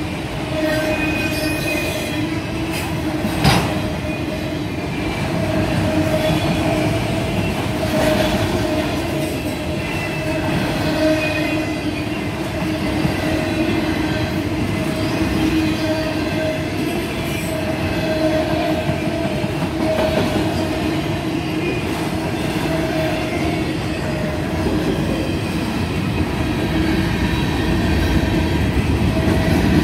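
Freight cars rolling steadily past with a continuous rumble and a steady, wavering squeal from the wheels on the rails. There is one sharp clank about three and a half seconds in.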